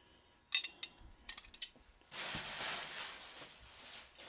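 Small metal hand-plane parts clinking and clicking as they are handled, a few light clinks in the first two seconds, then a longer rustling noise from about two seconds in as the box's contents are moved about.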